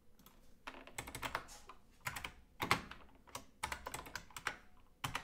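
Typing on a computer keyboard: quick runs of keystrokes in irregular bursts, with short pauses between them.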